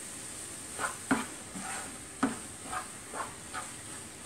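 Spatula stirring and scraping egg bhurji (Indian masala scrambled eggs) around a frying pan as it is cooked down until dry, a stroke about every half second, over a faint steady sizzle.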